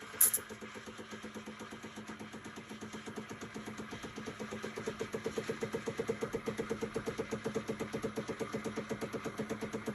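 Decent DE1Pro espresso machine running, a steady hum with a rapid even pulsing of several beats a second that grows louder about four seconds in.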